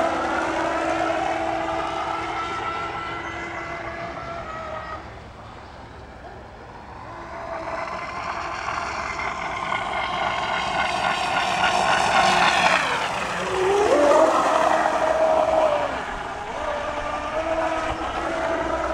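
BlackJack 29-inch RC speedboat's brushless motor running at speed on a 4S battery, a high-pitched whine with spray. It fades as the boat runs far out about five seconds in, then grows loud again as it comes close, briefly dipping and recovering in pitch about thirteen seconds in.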